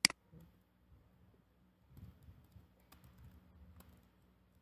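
A single sharp mouse click, then soft, uneven computer-keyboard typing from about two seconds in.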